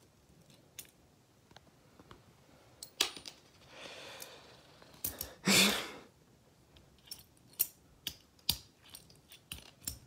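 Metal gravity claw grappling hook handled by hand, its jaws and pivots clicking and clacking irregularly as it is worked to grab a quarter. A soft rustle comes a little before halfway, then a louder scraping rustle just past halfway.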